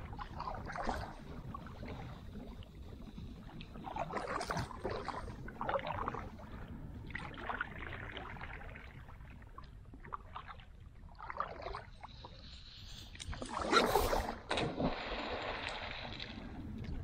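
Kayak moving across calm water, with splashing, swishing strokes every second or two. A louder splash and a rush of water come about three-quarters of the way through.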